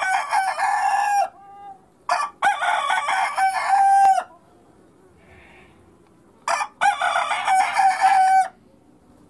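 Rooster crowing: the end of one crow, then two full crows a few seconds apart, each finishing on a long held note.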